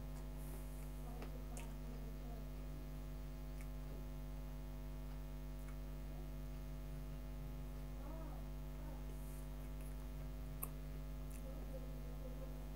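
A steady low electrical hum, with one faint click near the end.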